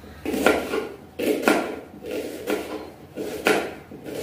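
Kitchen knife cutting an onion on a round chopping board: a string of short knocks as the blade strikes the board, roughly one a second.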